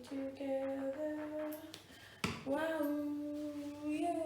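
A woman humming a wordless tune in a few long held notes, the last one sliding down at the end. A single sharp knock about two seconds in.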